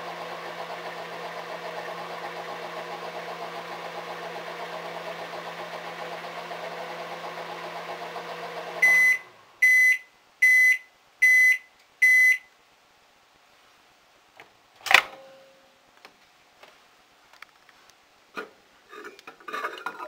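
Panasonic NE-E22A2 microwave oven running with a steady hum, which stops about nine seconds in as its countdown runs out. Five short high beeps follow to signal that heating is done. A few seconds later comes a sharp click as the door is opened, then small knocks as the mug is lifted off the turntable.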